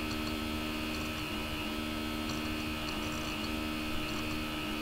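Steady electrical hum with a few fixed tones over a constant hiss, and a couple of faint clicks.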